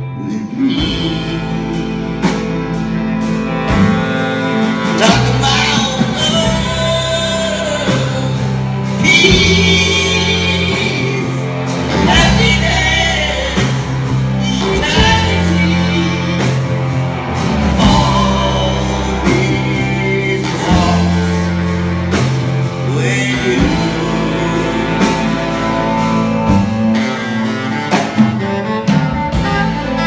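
Live rock band playing a slow song: steady bass notes, drums and guitar under a wavering lead melody.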